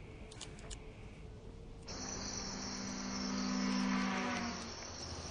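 Insects chirring in a steady high-pitched chorus that starts abruptly about two seconds in, with a low steady hum underneath for a couple of seconds. Before that there is only quiet room tone with a few faint clicks.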